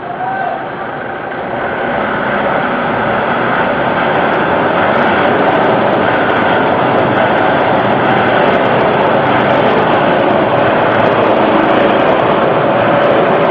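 Vehicle engine running loud and steady at raised revs, coming up in level over the first couple of seconds and then holding.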